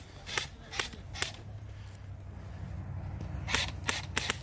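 Airsoft guns firing single shots as sharp snaps: three about 0.4 s apart in the first second and a half, then three more near the end, over a low rumble.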